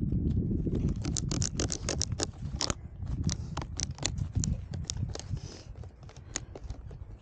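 Snowboard scraping and chattering over icy, hard-packed snow, with many sharp irregular clicks over a heavy rumble of wind on the microphone. The rumble fades in the last couple of seconds.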